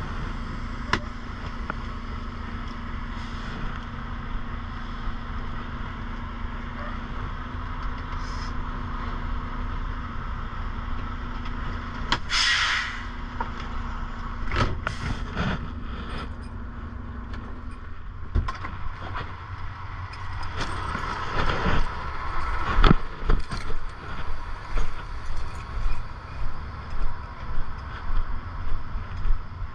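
Semi-truck's diesel engine running steadily at idle, with a short hiss of air from the brake system about twelve seconds in and a few sharp knocks. In the last several seconds the steady hum gives way to regular thuds, a little more than one a second.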